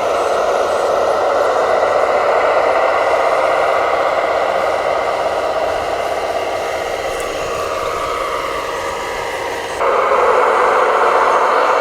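Electric motor and gearbox whine of an RC construction model, steady then sagging slightly in pitch, jumping suddenly louder near the end as the load on the motor changes.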